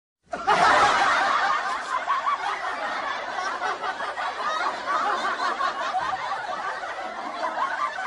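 Many people laughing and chuckling together, beginning suddenly about half a second in.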